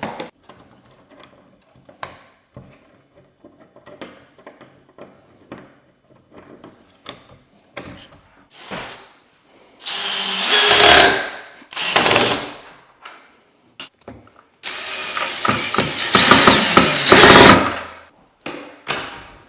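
Power drill driving screws while a door knob is fitted: small clicks of handling the hardware, then short runs of the drill motor, two brief ones and a longer one of a few seconds near the end.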